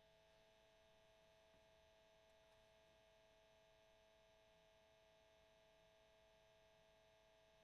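Near silence: only a faint, steady electrical hum with a constant tone.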